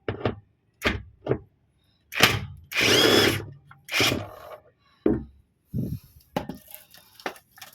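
Impact wrench running in a series of short bursts, with one longer, louder run about three seconds in, loosening a 10 mm bolt.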